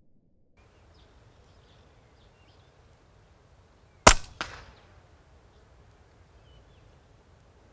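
A shot from a silenced BRK Ghost .22 PCP air rifle: one sharp crack about four seconds in, followed about a third of a second later by the fainter smack of the pellet hitting the target. Birds chirp faintly in the background.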